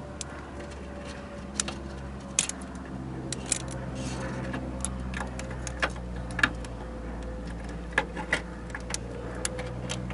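Irregular light clicks and taps of cables and their clamped ends against a license plate flipper's spool as they are wound on by hand, over a steady low hum.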